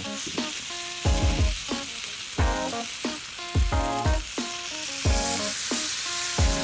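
Food sizzling steadily on a hot iron griddle, the sizzle growing a little stronger about five seconds in. Background music with a regular beat plays over it.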